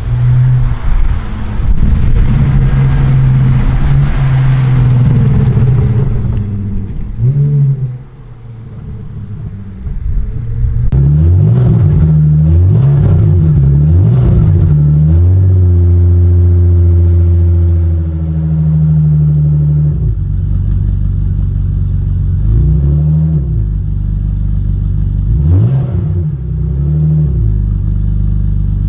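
BMW E46 320Ci straight-six running loud through an exhaust with the rear muffler removed. It revs up and down several times, with a steady stretch of running in between and more quick rev rises and drops near the end.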